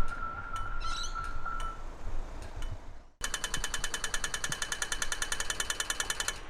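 Audio-tactile pedestrian crossing signals (Barker Technic push-button units): a steady high electronic tone with slow locator ticks, then after a sudden cut about three seconds in, the fast electronic rat-a-tat walk signal, a rapid even ticking, stopping just before the end.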